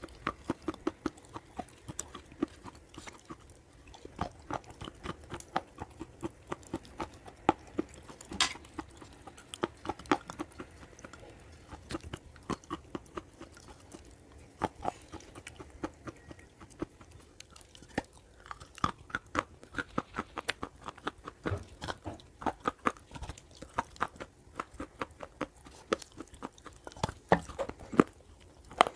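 Close-miked chewing and crunching of dry multani mitti (Fuller's earth) clay: many small, irregular crunches in quick succession.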